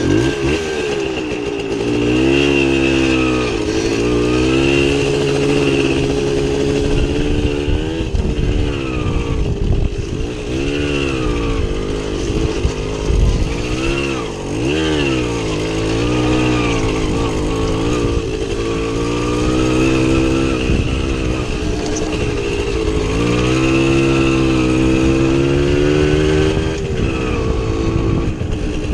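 Small two-stroke motorcycle engine being ridden offroad. Its pitch rises and falls again and again as the throttle is opened and closed.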